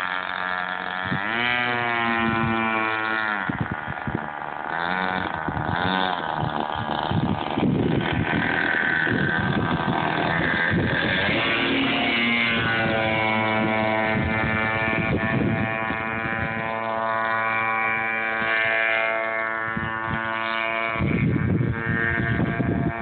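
Radio-controlled boat's motor whining, its pitch rising and falling with the throttle and then holding steady at speed. A brief rush of noise comes near the end.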